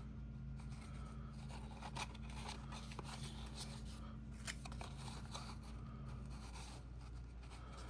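Faint rustling and light taps of cardstock being handled and folded, over a steady low hum.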